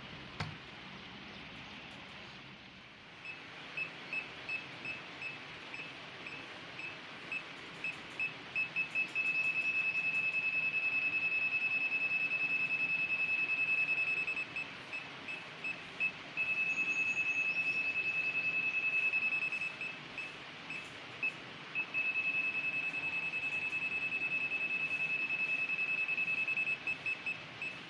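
ANENG SZ08 digital multimeter's non-contact voltage (NCV) beeper, sounding one high tone held near a live wall socket. It starts as separate beeps, about two or three a second, quickens, then runs as an unbroken tone three times with spells of beeping between: the meter is sensing live AC. A single click comes just at the start.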